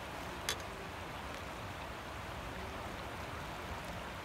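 Steady hiss of outdoor ambience at the water's edge, with one short faint click about half a second in.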